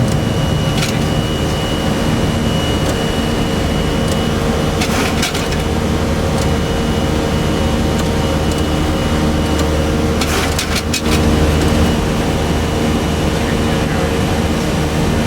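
Steady roar of a Boeing 737-300's CFM56-3 jet engines at high power, as heard inside the cockpit, with a constant whine over it. A few short clicks or rattles come about a second in, around five seconds, and twice around ten to eleven seconds.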